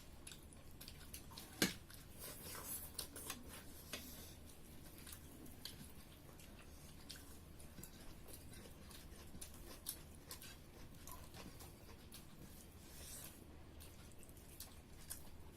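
People eating pork curry and rice: soft chewing and wet mouth noises with many small clicks, one sharper click about a second and a half in.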